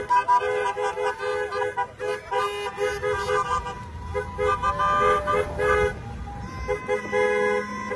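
Several vehicle horns from the convoy honking together in long, sustained blasts. The blasts break off briefly about two seconds in and again near six seconds.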